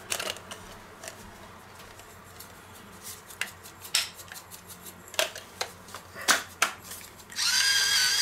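Metal spoon knocking and scraping against stainless steel bowls in scattered clinks. About seven seconds in, an electric pepper mill starts grinding with a steady whirring whine.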